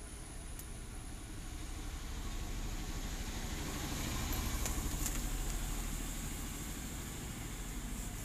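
A low, engine-like rumble that swells to its loudest about halfway through and then eases off, with a few faint clicks near the middle.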